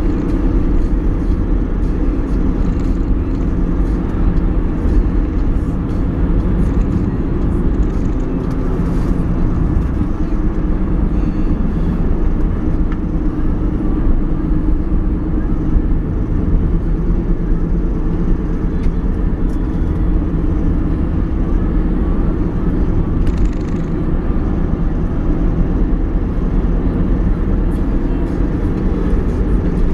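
Car's engine and tyre and road noise heard from inside the cabin while driving, steady and unbroken.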